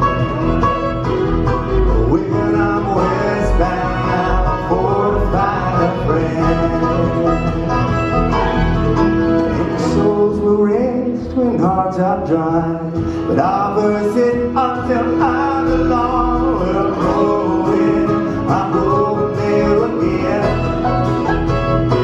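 Bluegrass band playing live on fiddle, mandolin, banjo, acoustic guitar and upright bass.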